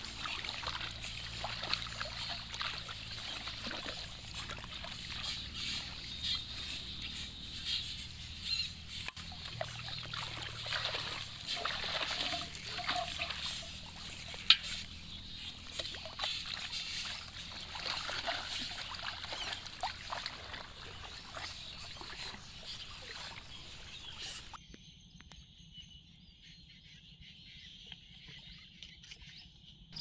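Shallow pond water sloshing, splashing and trickling as someone wades through water weeds and handles things in the water, with one sharp click about halfway. Near the end it drops to a much quieter thin, high hiss.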